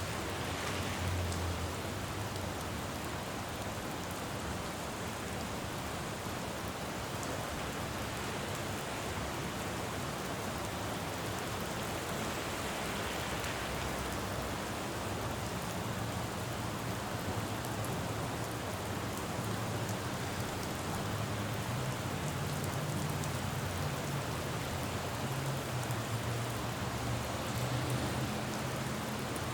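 Steady rain falling on a road. A low engine rumble of traffic comes in about halfway through.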